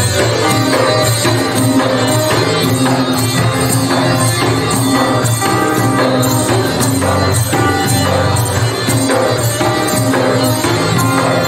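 Malay joget music from a small traditional ensemble: accordion and plucked lute over a frame drum keeping a steady, lively beat.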